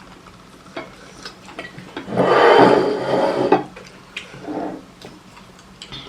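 Eating sounds of plates and utensils: scattered small clicks, and a louder scraping, stirring noise lasting about a second and a half, starting about two seconds in, with a shorter one a little later.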